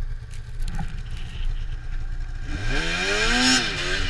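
Arctic Cat Crossfire 600 snowmobile's two-stroke engine running low and steady, then revving up about two and a half seconds in, its pitch climbing, dipping and climbing again, with a rush of noise swelling as it speeds up.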